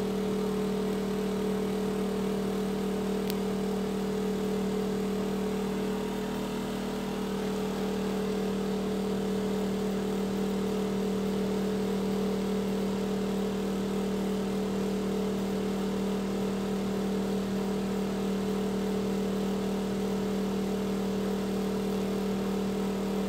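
Ceiling exhaust fan running noisily: a steady hum with the rush of air.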